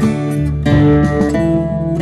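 Acoustic guitar strummed with a pick in a 3/4 waltz pattern: a bass note followed by two chord strums, repeating at an even pace of about three strokes every two seconds.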